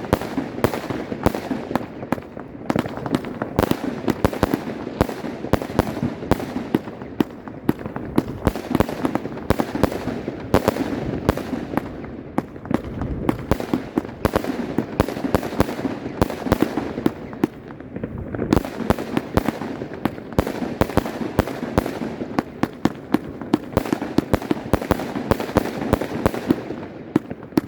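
Volt! Voltbrothers compound firework battery firing: a dense run of sharp bangs and crackling reports, many a second, with brief thinner spells every few seconds.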